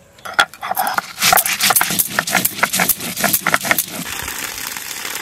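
A stone roller crushing whole coriander and cumin seeds on a flat grinding stone (shil-nora). It makes a quick run of sharp cracks and crunches, about five a second, which stops a little before the end.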